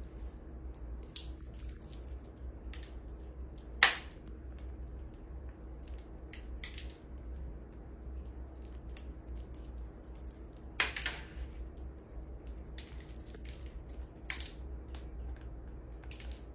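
A parrot cracking and crunching a pistachio shell with its beak. It makes irregular sharp cracks and small crunches, with the loudest cracks about a second in, about four seconds in, and around eleven seconds in.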